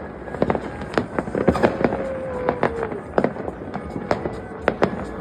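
New Year's Eve fireworks: many irregular bangs and crackles, some near and sharp, others distant. A single held tone sounds for about a second and a half partway through.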